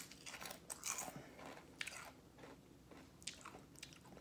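Wavy potato chips being bitten and chewed: irregular crisp crunches, thickest in the first two seconds and sparser after.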